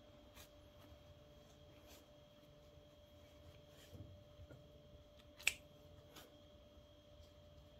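Near silence: faint clicks and taps from steel scissors being handled while fiberfill is poked into a crocheted doll, with one sharper click about five and a half seconds in, over a faint steady hum.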